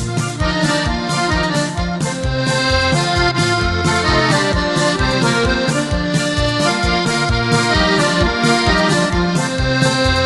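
Instrumental background music with a melody over a steady beat.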